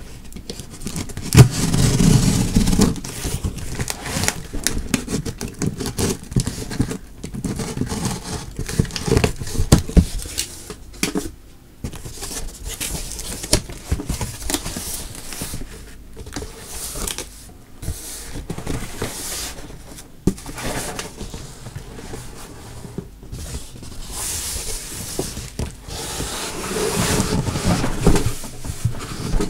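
A cardboard shipping box being cut open and handled: a box cutter slitting packing tape, with cardboard flaps and packing scraping and rustling and irregular knocks. There is a sharp knock near the start.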